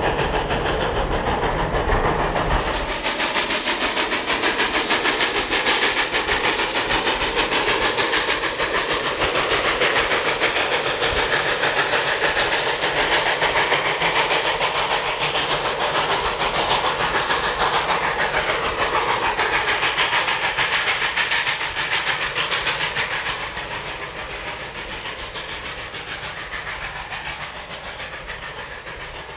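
Southern Pacific No. 18, a 3-ft narrow-gauge oil-burning 4-6-0 steam locomotive, hauling a train of passenger coaches: steady steam exhaust and hiss with the wheels clacking over the rail joints. It fades over the last several seconds as the train draws away.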